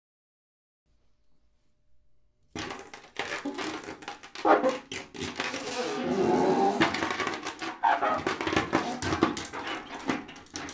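Free-improvised solo drum-kit playing in a noisy, textural style. After near silence it starts suddenly about two and a half seconds in, with a dense mix of sharp clicks and strikes, scraping, and wavering pitched squeals.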